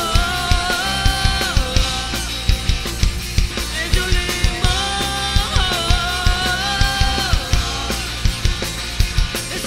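Live rock band playing an instrumental passage: electric guitars holding long notes that bend and slide, over a driving drum kit beat and bass.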